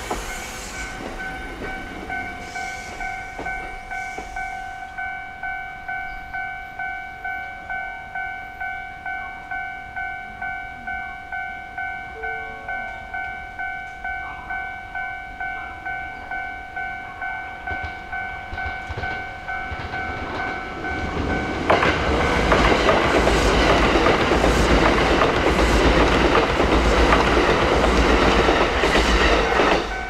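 Japanese level-crossing warning bell ringing steadily at about two dings a second. About 22 seconds in, an electric train runs through the crossing, and its loud rumbling noise drowns the bell until it eases off near the end.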